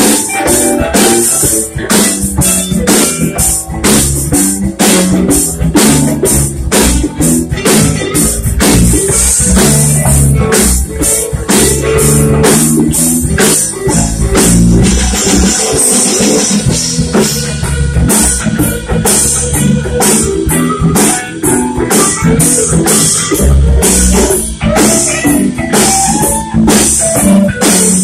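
Live blues-rock band playing an instrumental stretch: electric guitars over bass guitar, a drum kit keeping a steady beat, and congas.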